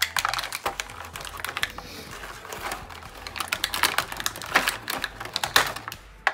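Stiff clear plastic packaging crinkling and clicking irregularly as action-figure accessories are picked and worked loose from it by hand.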